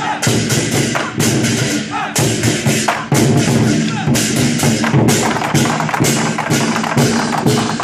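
Chinese war drum troupe playing: large drums struck in a fast, driving rhythm with cymbals crashing along.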